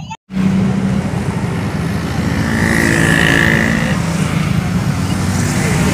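Motorcycles and scooters passing close by in a steady stream, their small engines running. A high-pitched tone sounds for about a second midway.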